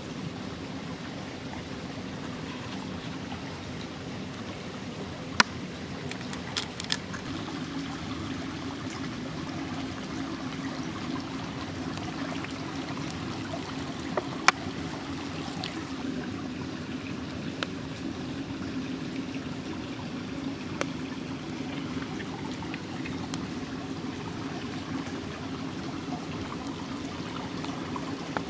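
A small stream running steadily, with a few sharp clicks scattered through it, the loudest about five seconds and about fourteen seconds in.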